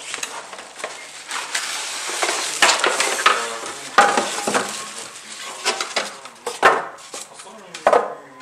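Packaging being handled while a boxed appliance is unpacked: plastic wrap crinkling, styrofoam inserts and cardboard rubbing and sliding, with many small clicks. Several louder knocks come at about four seconds, near seven seconds and near the end.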